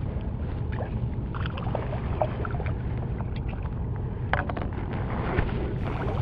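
A small speckled trout splashing and thrashing at the water's surface beside the kayak as it is reeled in, in a series of short irregular splashes over a steady low rumble.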